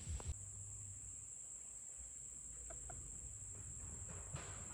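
Black Australorp hens giving two faint, short clucks about three seconds in, over a steady high-pitched insect buzz.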